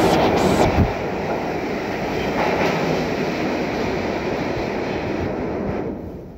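R68 subway train leaving the station: the steady noise of its cars and wheels on the track, with a hiss in the first second, fading away near the end as the last car disappears into the tunnel.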